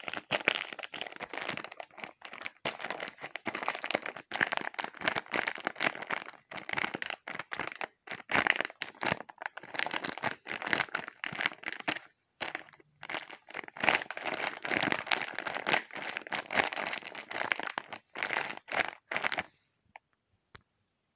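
Dense, irregular crinkling and crackling, as of something being crumpled and handled close up. It stops about nineteen seconds in.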